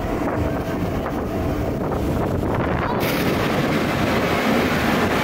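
Steady rush of wind on the microphone mixed with the running noise of a spinning rocket ride, with the hiss getting brighter about three seconds in.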